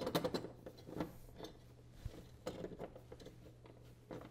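Faint, irregular clicks and ticks of a hand screwdriver driving a machine screw and washer through a TV wall-mount bracket into the back of a flat-screen TV.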